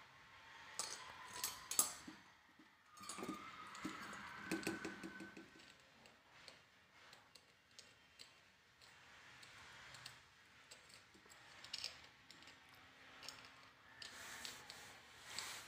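Faint clicks and light rattling of small metal parts being handled as hands fit a metal holder and its wires onto a chandelier's metal frame, with a few louder clicks in the first few seconds and near the end.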